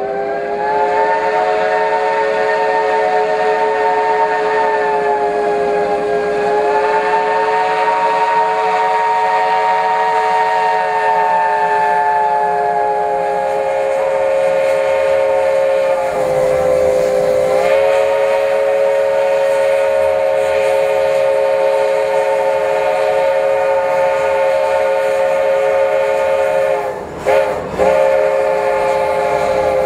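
Steam locomotive's chime whistle blowing long, held blasts, several notes sounding together and wavering slightly in pitch, with a brief dip about sixteen seconds in and a short break near the end.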